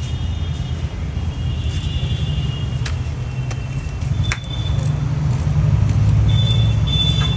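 Street traffic: a steady low rumble of passing motor vehicles that grows louder about halfway through, with a few sharp clicks and brief high ringing tones on top.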